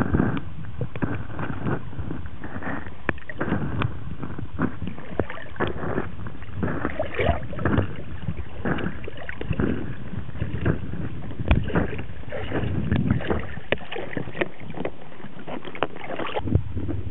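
Welsh corgi dog-paddling, its paw strokes churning the water in irregular splashes and swishes, heard muffled through a camera held underwater at the waterline.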